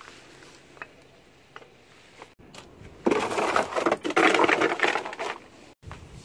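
A few light taps, then, about three seconds in, a loud rough scraping and rustling on the ground that lasts about two and a half seconds and stops abruptly.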